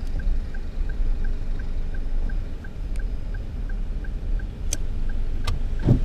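Car heard from inside the cabin at low speed: a steady low rumble with a faint, even tick about three times a second, and a couple of sharp clicks near the end.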